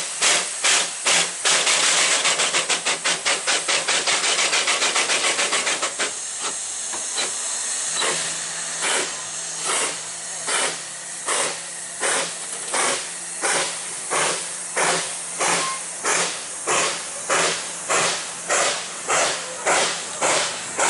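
Narrow-gauge steam locomotive working, its exhaust beating in regular chuffs. The beat quickens sharply for a few seconds, gives way to a steady hiss of steam about six seconds in, then returns as slower, evenly spaced chuffs.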